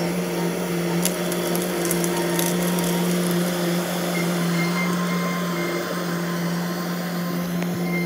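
Bobcat skid steer's diesel engine running steadily at a constant pitch while the machine works its bucket into a felled tree, with a few sharp cracks about one and two seconds in.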